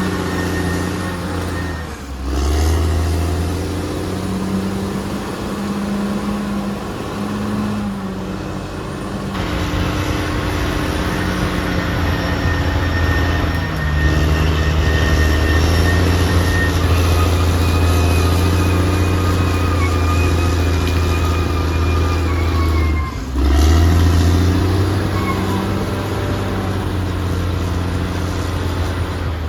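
Caterpillar D6R XL bulldozer's diesel engine running steadily under working load, its note shifting abruptly a few times.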